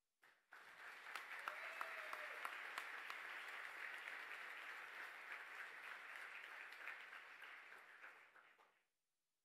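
Audience applause, many people clapping, lasting about eight seconds and cutting off abruptly near the end.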